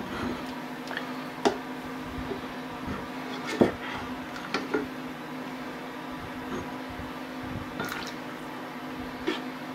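Soup being moved about in a saucepan with a ladle: liquid sloshing and dripping, with a few sharp knocks of the ladle against the pan, the loudest about three and a half seconds in, over a steady low hum.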